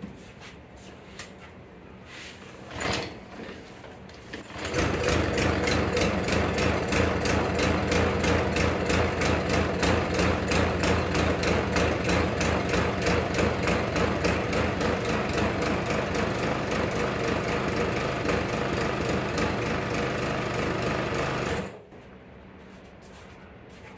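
Briggs & Stratton single-cylinder lawn mower engine making its first start after being rebuilt. After a short burst about three seconds in, it catches and runs steadily with an even pulse, blade off, for about seventeen seconds, then shuts off abruptly near the end.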